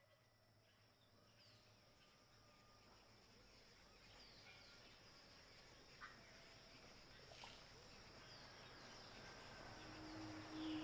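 Faint natural ambience fading in and growing steadily louder: a constant high insect drone with short chirping bird calls scattered through it, and a couple of soft clicks about halfway.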